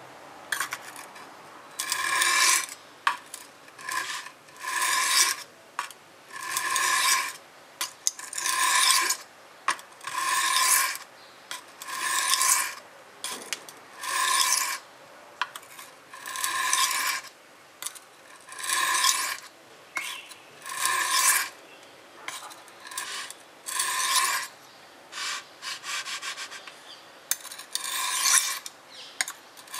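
Stainless steel kitchen knife stroked edge-down across a coarse whetstone: a rasping scrape with a faint ringing tone, repeated about every two seconds, with a few shorter, quieter strokes near the end. This is the stage of raising a burr along the last short stretch of the edge that still lacks one.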